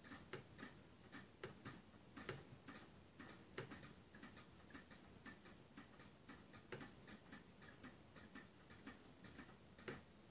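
Faint, irregular clicking of a computer mouse while web pages are navigated.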